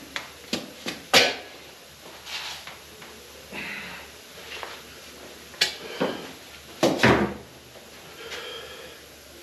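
Steel shovel working foundry molding sand: clanks of the blade against metal and scraping scoops, with sand tipped into a molding flask. There are five or six sharp clanks, the loudest about a second in and around seven seconds in, with softer scraping sounds between them.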